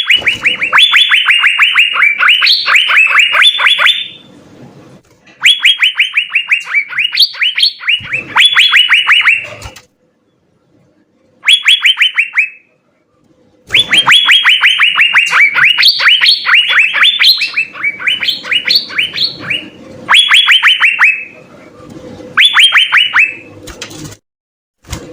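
Asian fairy-bluebirds (cucak biru) singing in phrases of rapid, evenly repeated sharp notes. The phrases last from about one to six seconds and are broken by short pauses.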